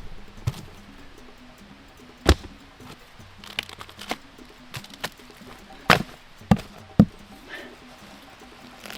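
Wood being struck: a series of sharp, irregular knocks, about seven, the loudest a little after two seconds in and twice near the end.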